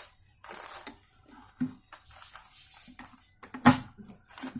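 A few sharp metallic clunks, the loudest about three and a half seconds in. They come from the Hyundai Santro's gearbox being shifted between neutral and gear to check gear selection after reassembly.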